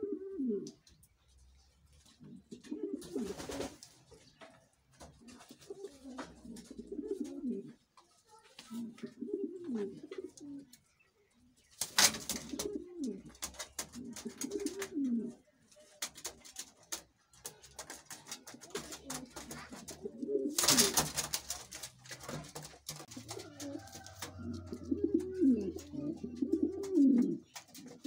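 King pigeons cooing over and over, in low bending phrases of a second or two each. Several loud bursts of wing flapping come in between, the loudest about 12 and 21 seconds in.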